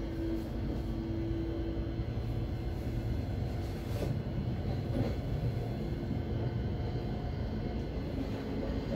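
Interior running noise of a Thameslink Class 700 electric multiple unit travelling between stations: a steady low rumble from the wheels on the rails, with a faint hum that fades in and out and a couple of light knocks around four and five seconds in.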